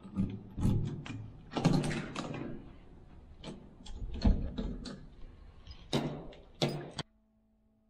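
A key turning in a hotel room door's lever-handle lock, the latch and handle clicking, then the door opening, with a string of clicks, knocks and rustling. The sounds stop abruptly about seven seconds in.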